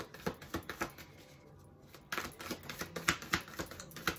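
Light, irregular clicks and taps of oracle cards being handled and set down on a table, easing off for about a second before picking up again.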